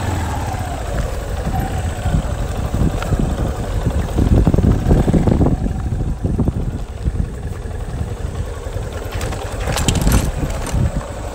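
Off-road vehicle engine running as it drives over rough grassy ground, with heavy rumble and jolting. There is a brief rattle near the end.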